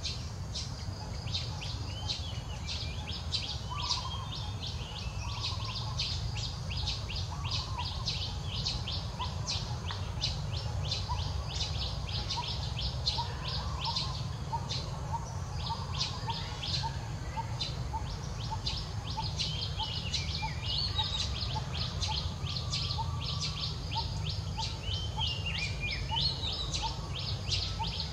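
Many small birds chirping rapidly and continuously over a steady low rumble. From about midway a short repeated note joins in, about twice a second.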